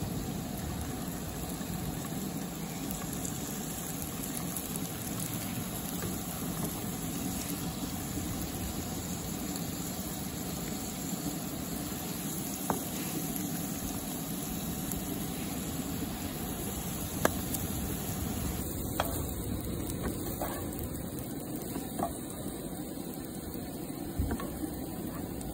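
Rockfish fillets and diced onion sizzling in oil in a frying pan on a camp stove, a steady sizzle with a few light clicks from time to time.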